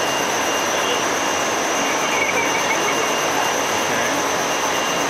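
Steady rushing noise of ventilation and cooling machinery in the detector cavern, with a thin, high, constant whine over it.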